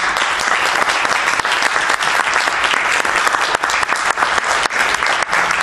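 An audience applauding: many people clapping steadily at the end of a talk.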